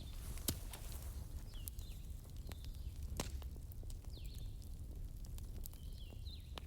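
Wood fire crackling: scattered sharp pops, the strongest about half a second in and again about three seconds in, over a steady low rumble, with a few faint short falling chirps now and then.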